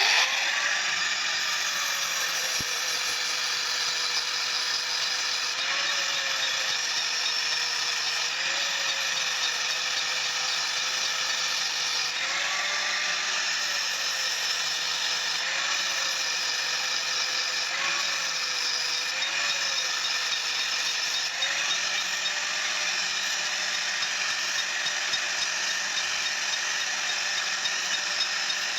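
A rotating machine whirring steadily with a rattle; its pitch dips slightly and recovers every few seconds, as under changing load.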